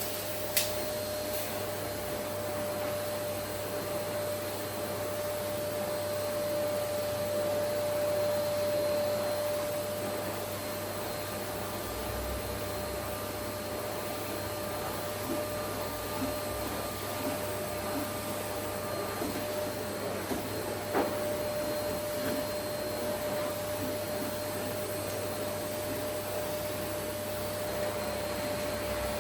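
Vacuum cleaner running steadily: an even rush of air with a steady hum over it, and a faint click near the start and another about two-thirds of the way through.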